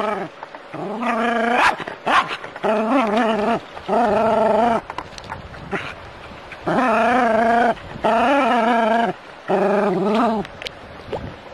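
A dog giving six long, drawn-out barks, each close to a second long with a wavering pitch, separated by short pauses.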